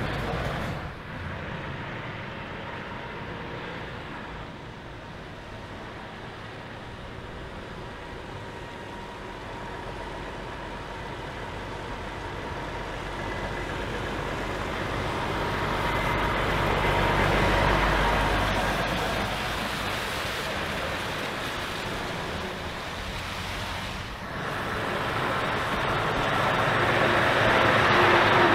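Heavy truck diesel engines running as the trucks drive slowly past one after another, the low rumble and tyre noise swelling as each one comes close, loudest past the middle and again near the end.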